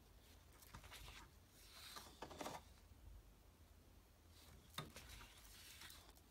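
Faint rustling and sliding of large paper art prints being handled and turned over, with a light tap nearly five seconds in.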